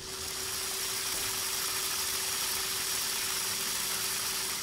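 Small brushless motor under FOC control from an L6234 driver, spinning to a commanded position: a steady hissing whir that starts and stops abruptly.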